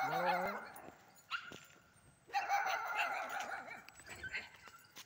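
A dog whining and yelping in high, wavering calls: one stretch at the start and another a little over two seconds in.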